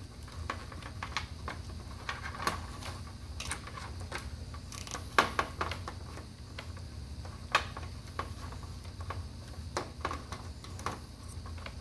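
Irregular light clicks and rustles of computer cables and a twist tie being handled against a metal computer case, with a few sharper knocks, over a steady low hum.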